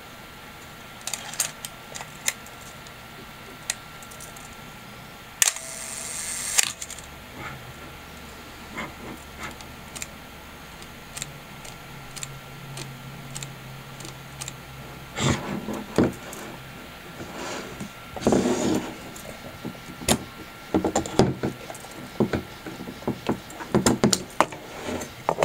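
Handling sounds of a Canon TX 35 mm film SLR body: scattered sharp clicks from its metal controls, a short rasping burst about six seconds in, and clusters of clicks and rattles in the last ten seconds as the top-plate controls around the rewind knob are worked.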